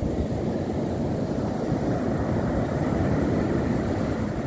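Ocean surf breaking on a sandy beach, mixed with wind buffeting the microphone: a steady low rumble without a break.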